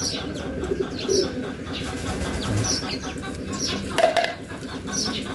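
Birds calling in the background: short, high, falling chirps repeating throughout, with a lower cooing. One sharp knock about four seconds in.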